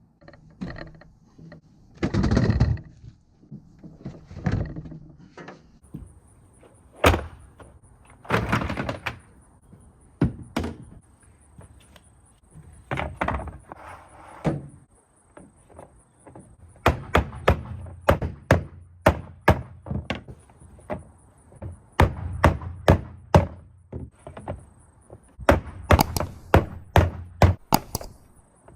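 A long series of hard thunks and knocks as organizer pieces are handled and set into a pickup truck bed. The knocks are scattered at first and come in quick runs of several a second in the second half.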